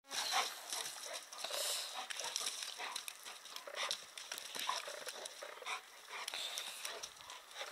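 Two Boerboel dogs play-fighting: irregular short breathy and scuffling sounds from the dogs and their paws on dirt and dry leaves.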